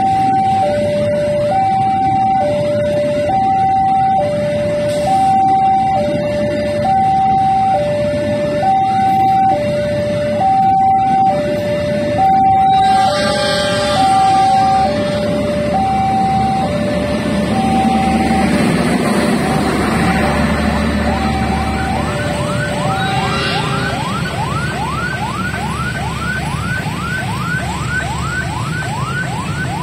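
Railway level-crossing warning alarm sounding two alternating tones, high then low, each held just under a second. After about twenty seconds it fades as a second alarm of short rising whoops, about two a second, takes over.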